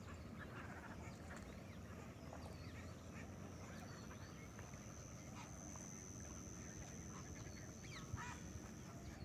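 Faint chorus of distant waterbirds calling at a wetland, many short scattered calls overlapping, with a steady high whine underneath.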